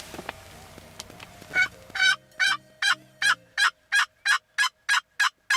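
Turkey call sounding a series of about eleven loud hen yelps, starting about one and a half seconds in and speeding up slightly toward the end.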